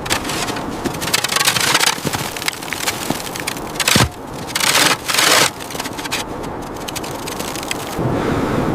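Irregular crunching and scraping noises with a sharp crack about four seconds in, then a steadier rush of wind on the microphone near the end.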